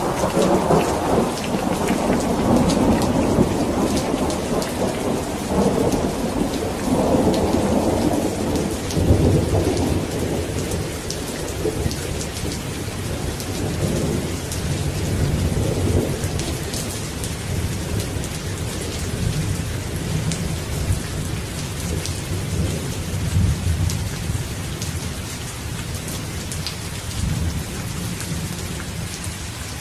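Steady rain falling, with individual drops ticking through it, under a long roll of thunder. The thunder rumbles loudest for the first eight or nine seconds, then sinks to a low rumble that fades out toward the end.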